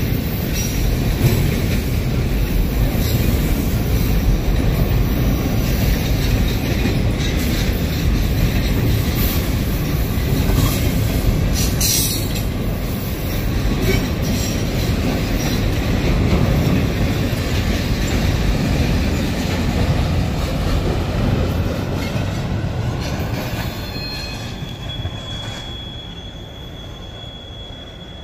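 Freight trains rolling past on adjacent tracks, an intermodal train of double-stack container well cars and a manifest of tank cars: a steady rumble of steel wheels on rail with occasional clanks. Over the last few seconds the rumble fades and a thin, steady, high wheel squeal sets in.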